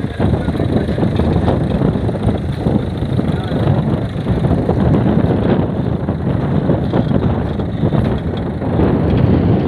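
Mahindra tractor's diesel engine running steadily under load, pulling a seed drill through tilled soil.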